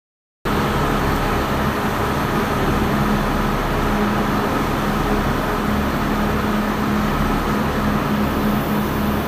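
Steady mechanical hum with a constant low drone, after a brief silent dropout at the start.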